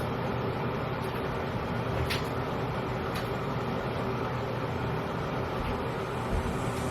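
Steady background rumble and hiss with no music playing, broken by two faint clicks about two and three seconds in.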